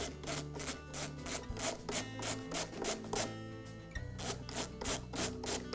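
Ratcheting screwdriver rasping in quick repeated strokes, about three a second, as screws are backed out of a leaf blower's air filter base. The strokes pause briefly a little past halfway, then resume.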